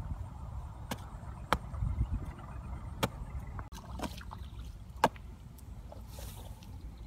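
Metal blade of a hand hoe chopping into hard, dry, clumpy soil while digging a pit: a handful of sharp strikes, roughly one a second, over a low steady rumble.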